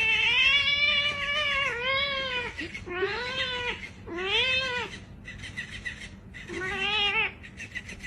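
A cat yowling: one long drawn-out call, then three shorter meows.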